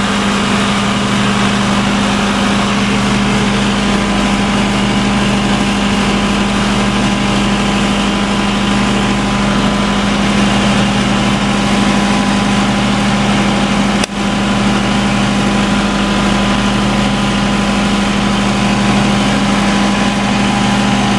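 Perkins diesel generator set running at a steady speed, an even engine drone with a slight regular pulse. There is a brief dropout about fourteen seconds in.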